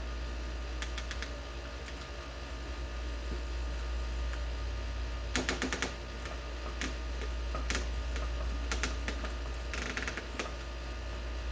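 Small C-clamp being tightened to press a shifter bushing, giving scattered metallic clicks and taps in short clusters, the sharpest burst about halfway through. A steady low hum runs underneath.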